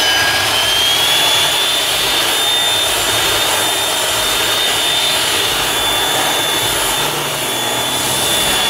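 Electric power sander running steadily on a wooden slab: a loud high whine over a rushing hiss, its pitch wavering slightly.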